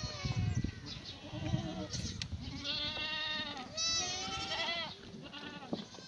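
Several black goats bleating, their calls overlapping one another, some high-pitched and some with a wavering, quavering pitch.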